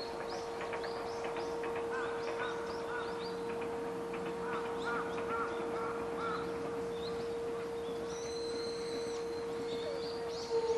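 An outdoor warning siren holding one steady tone, which starts to wind down in pitch near the end. Small birds chirp and twitter over it.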